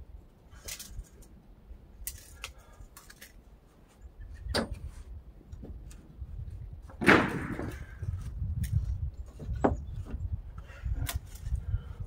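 Sawn wooden boards being handled and set down on a sawmill bed: a series of separate knocks and clatters, the loudest about seven seconds in, over a low rumble from about four seconds on.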